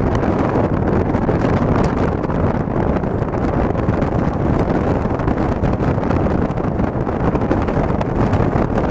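Steady rushing noise of a moving car, road and wind noise with wind buffeting the microphone.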